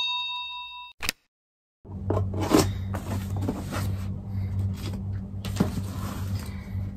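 A bell-like chime dies away in the first second. From about two seconds in, hands handle a large cardboard laptop box, with irregular knocks, scrapes and rustles over a steady low hum.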